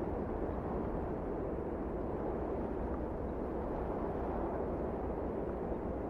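Steady low rumble of wind on the microphone, mixed with the wash of surf breaking on the reef offshore.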